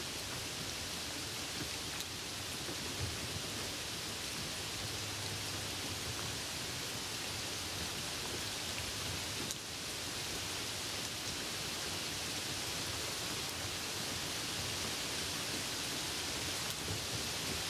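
Rain on a moving car: a steady, even hiss, with faint drop ticks and a low road rumble underneath.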